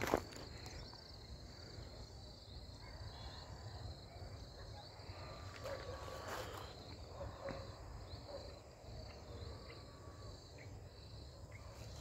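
Insect chirping outdoors, a high thin chirp repeating a few times a second, over a low rumble of wind and handling on the microphone. A sharp knock comes right at the start, and a few soft knocks follow about halfway through.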